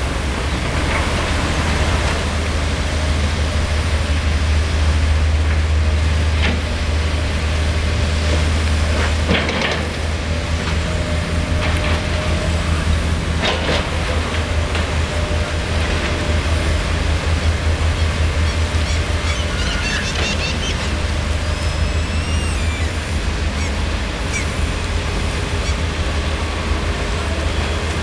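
Diesel engine of a Liebherr 924 Litronic long-reach crawler excavator running under load with a steady deep rumble while it digs and swings, with a couple of sharp knocks from the working gear.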